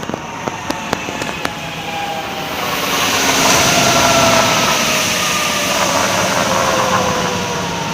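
Car coasting with the engine switched off: tyre and road noise with a hum from a wheel hub bearing that slowly falls in pitch as the car slows, the sign of a worn hub bearing. A few sharp clicks come in the first second or so.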